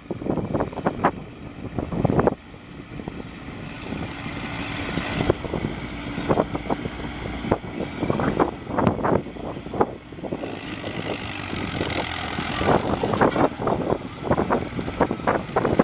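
Machinery running, with a steady mechanical noise and many irregular knocks and clatters.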